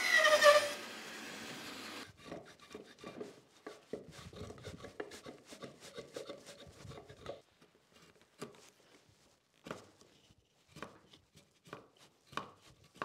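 A bandsaw finishing a cut through a thick maple board, its sound falling in pitch during the first second. It is followed by hand-tool paring of the freshly cut notch in the maple: a quick run of scraping strokes, then slower single cuts.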